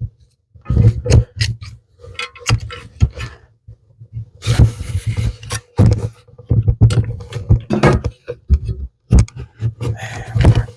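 Wood being knocked and scraped as a tight-fitting piece is forced into a hole: irregular knocks with two longer scrapes, one about four seconds in and one near the end.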